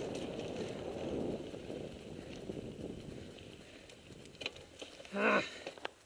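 Mountain bike rolling over a dirt and gravel trail, the tyre noise fading as it slows, with a few clicks. About five seconds in comes one brief, loud, pitched squeal.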